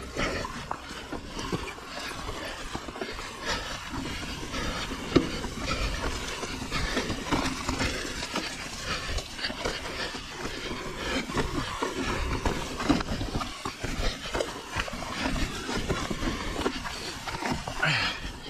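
Full-suspension mountain bike descending a steep rocky trail: tyres clattering over loose stones and boulders, with the bike rattling in a continuous run of small knocks.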